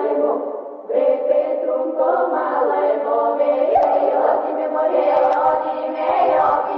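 Background music with layered, chant-like singing voices.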